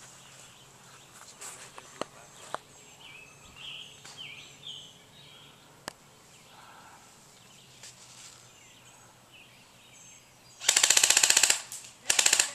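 Airsoft rifle firing two full-auto bursts near the end: a rapid, even string of plastic-BB shots about a second long, then a shorter burst.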